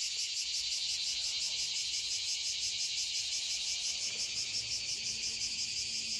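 A steady chorus of summer insects, a high buzzing that pulses evenly about five times a second.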